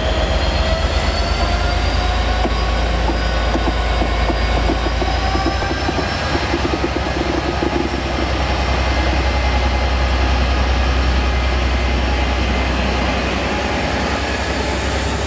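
Class 57 diesel locomotive's EMD two-stroke V12 engine working hard as it pulls away, its note rising in pitch over the first six seconds or so, then running steadily as the locomotive passes close by.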